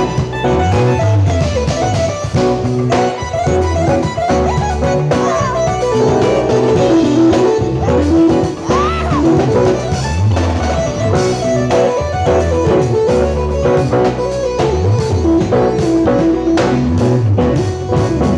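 Live band shed-session jam: fast guitar lines over a drum kit playing busy fills and cymbals.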